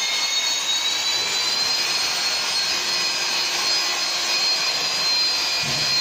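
Electric power tool motor running at full speed: a steady rushing noise with a high whine that climbs and settles in pitch in the first second, then holds steady.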